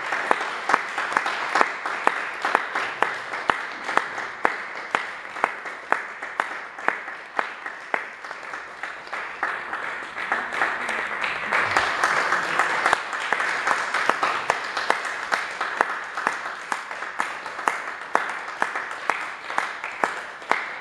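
Audience applauding, with sharp individual claps standing out; the applause swells for a few seconds about halfway through.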